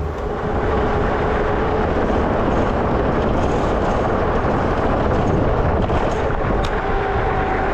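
Steady wind rumble on the microphone of a moving electric bike, mixed with tyre noise on the path and a faint steady tone.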